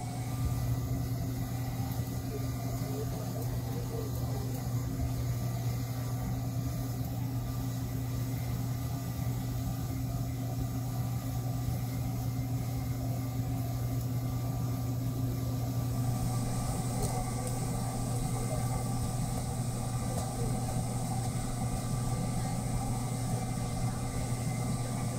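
Steady low mechanical hum of a machine running.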